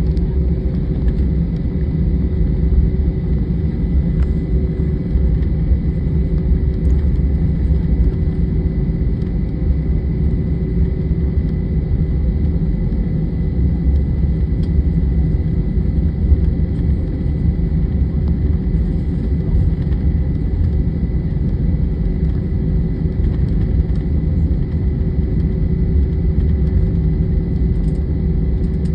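Jet airliner engine noise inside the passenger cabin: a steady low rumble with a faint, even high whine, no change in pitch or level.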